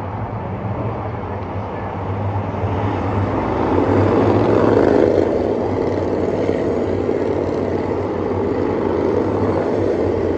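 Short-track race cars running laps on an asphalt oval, a pack of engines passing the catch fence. The engine noise is steady and grows loudest about four to five seconds in as cars come past nearest.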